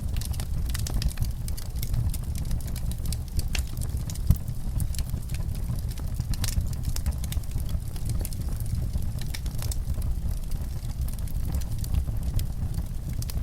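Fireplace fire crackling: many small, sharp, irregular pops over a steady low rumble, with one louder pop about four seconds in.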